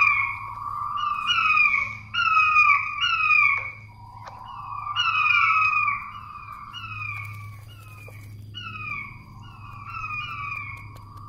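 Puyuh batu (king quail) giving its lure call: a long series of short, falling whistled notes, a few a second in runs. The calls are louder in the first half and softer from about six seconds in.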